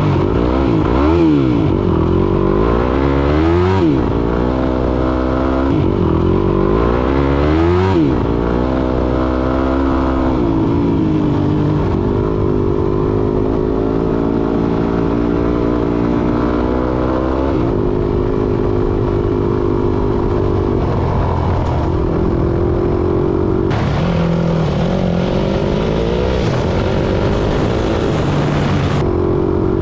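Vehicle engine revving, its pitch rising and falling several times in quick succession over the first eight seconds, then running at a steadier speed with smaller rises and dips.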